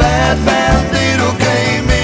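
Background music: a song with a wavering melody line over a bass line and a steady beat.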